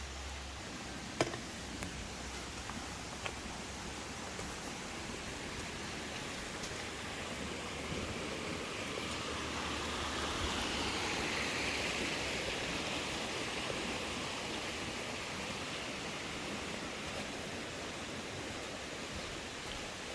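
Steady rush of a river's flowing water that grows louder for a few seconds around the middle, with a single sharp click about a second in.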